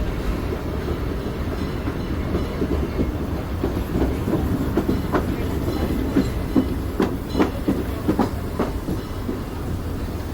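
Disneyland Railroad train running along the track, heard from aboard: a steady low rumble, with a run of clacks from the wheels over the rail joints from about four seconds in until near the end.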